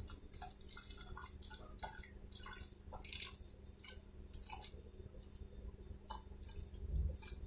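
Faint trickle and drips of water poured slowly from a plastic jug into a plastic bottle of rice, with scattered small clicks and ticks.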